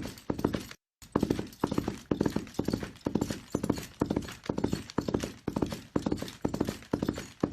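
Horse galloping: hoofbeats in quick clusters of strikes repeating about twice a second. The sound cuts out briefly just under a second in.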